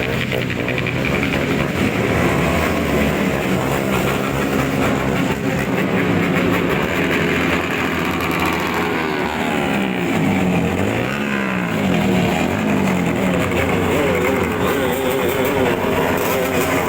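Motorcycle engines with loud aftermarket exhausts revving, several engine notes overlapping, the pitch repeatedly rising and falling in a contest of exhaust loudness.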